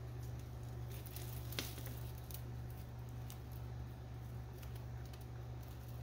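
Light rustling and clicking in dry leaf litter and from steel feeding tongs as a yellow-tail cribo takes a quail chick from them, with a sharper click about a second and a half in, over a steady low hum.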